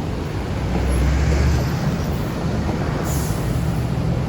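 Large bus's diesel engine running, louder for a moment about a second in, with a short hiss of air about three seconds in.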